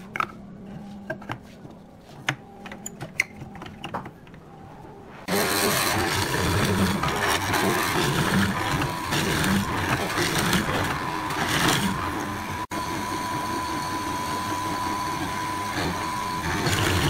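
A few knocks and clicks as the pine workpiece is set against the fence and clamped, then about five seconds in a hollow-chisel mortiser starts and runs loud with a steady whine while its chisel bores into the pine.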